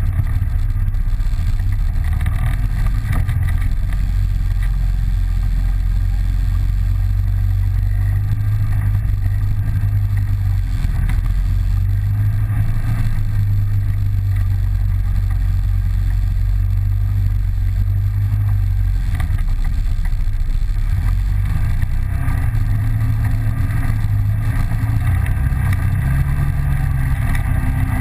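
ATV engine running steadily under throttle on a dirt trail, its low note shifting slightly higher near the end.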